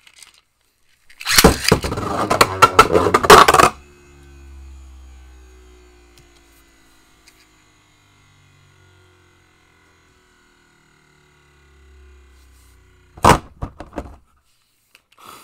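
Two Beyblade Burst tops launched into a plastic stadium, clattering and scraping hard against each other and the stadium for about two and a half seconds, then spinning on with a faint whir that fades. Near the end a sharp clack and a few small clicks as the tops are picked out by hand.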